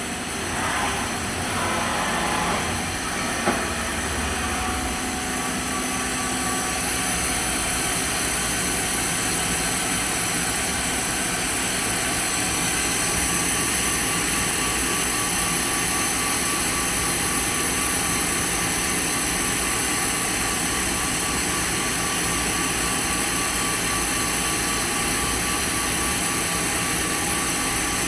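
Fadal 914-15 CNC vertical machining center running, a steady mechanical hum with several high, steady whining tones. A single short knock comes about three and a half seconds in.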